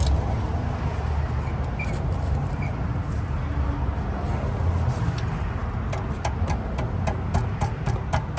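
A steady low rumble, then from about six seconds in a ratchet wrench clicking in an even run, roughly three to four clicks a second, as it works a 17 mm socket on the oil drain plug.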